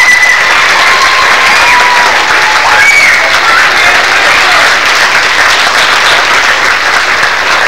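Large audience applauding steadily, with a few voices cheering over the clapping.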